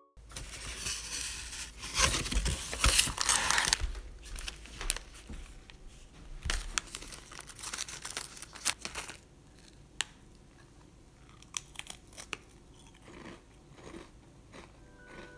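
Foil-lined plastic snack wrapper being torn open and crinkled in the hand, loudest for the first few seconds, then crackling in short bursts that thin out to a few faint clicks after about nine seconds.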